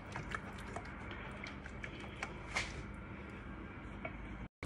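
Wooden spoon stirring a thick, creamy spinach sauce in a stainless steel pot: faint squishing with light, scattered clicks of the spoon. The sound cuts out briefly near the end.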